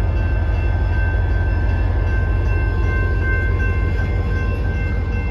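CSX welded-rail train with a diesel locomotive passing close by: a steady deep rumble, with several thin high-pitched tones held steadily over it.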